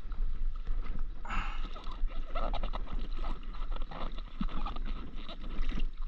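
Paddle strokes on a stand-up paddleboard: the blade splashing in and out of the sea and water slapping against the board, with irregular knocks. A steady low rumble of wind on the microphone runs underneath.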